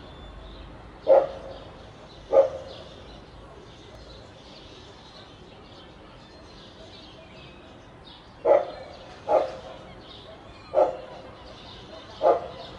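A dog barking six times: two barks about a second apart, then after a pause four more spread over the last few seconds, over a faint steady hiss.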